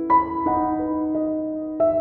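Slow background keyboard music with sustained, piano-like notes; a new chord is struck at the start and another near the end.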